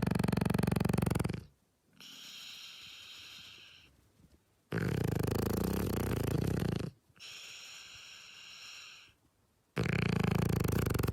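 A sleeping dog snoring: loud, rattling snores about every five seconds, three in all, with a quieter, thinner, whistly breath between each.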